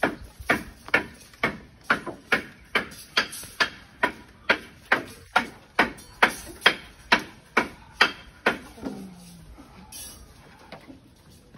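Hammer blows on timber beam formwork, a steady run of sharp strikes at about two a second that stops about eight and a half seconds in.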